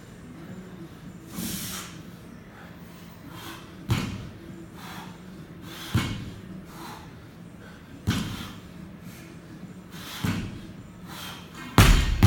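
Barbell loaded with rubber bumper plates, about 90 kg, set down on a mat floor between deadlift reps, thudding about every two seconds with the loudest thud near the end. Hard exhalations from the lifter come between the thuds.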